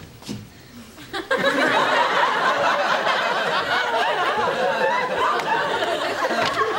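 Sitcom studio audience laughing loudly, breaking out about a second in and holding steady.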